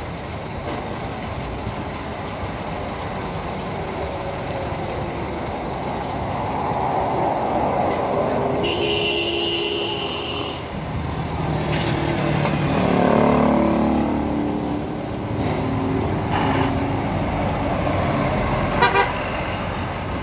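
Street traffic going by: a vehicle horn sounds steadily for about two seconds near the middle, then an engine passes close and fades. A short clatter comes near the end.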